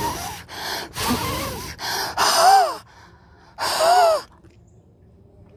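A man huffing warm breath hard onto a car window to fog the glass: a run of about half a dozen open-mouthed exhalations, each about half a second long. The last two are the loudest and have a hoarse voiced 'haa' in them.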